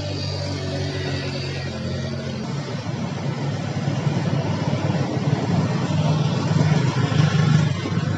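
Motor traffic passing on a rain-soaked road. Early on there is a steady engine hum, then a vehicle's engine and tyre noise grow louder to a peak about seven seconds in, all over a steady hiss.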